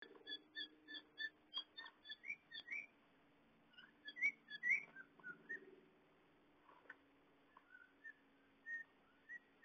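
A run of short, high-pitched chirps, about three a second at first, then several rising whistle-like calls and a few scattered single notes, over a faint steady hum.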